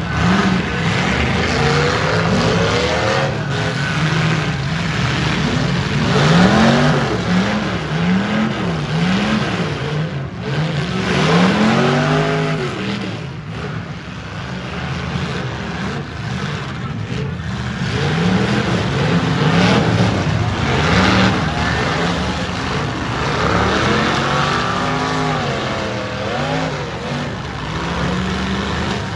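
Demolition derby cars' V8 engines running hard, revved again and again, so the engine note keeps rising and falling about once a second over a steady din of several engines.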